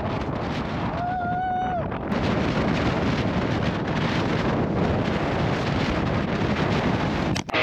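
Strong wind buffeting the microphone in a steady noisy rush, with a brief whistle-like tone about a second in lasting under a second.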